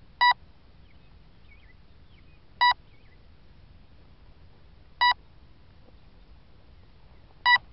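Electronic beeper on the downed drone sounding a short, high beep every two and a half seconds or so, four times.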